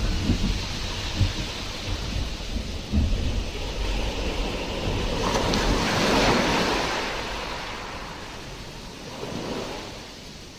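Nature-sounds background track: a rushing, rumbling noise with a few low thumps in the first seconds, swelling about halfway through and then dying away.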